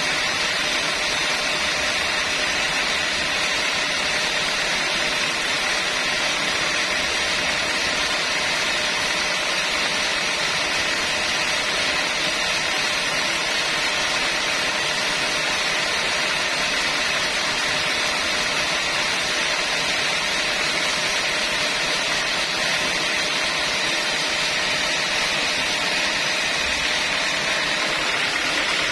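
Sawmill machinery running steadily with no cut under way, an even, unbroken mechanical noise.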